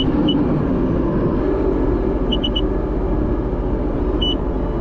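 Sea-Doo RXP 300's supercharged three-cylinder engine running steadily, with short high electronic beeps from the watercraft as sport mode is selected: two at the start, three quick ones midway and one longer beep near the end.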